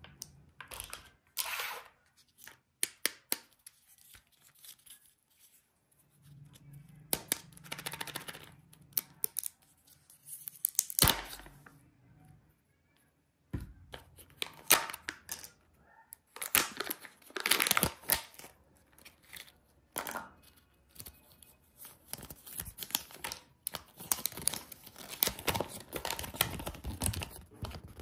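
Kinder Joy egg packaging torn and peeled open by hand: plastic wrapper tearing, the sealed lid peeled off the toy capsule, and paper crinkling. The sounds come in irregular bursts with short pauses and a few sharp clicks.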